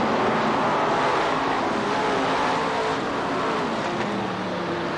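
Several late model stock cars' V8 engines running at racing speed around the oval, a loud, steady mix of engine notes, with one engine note dropping in pitch about four seconds in.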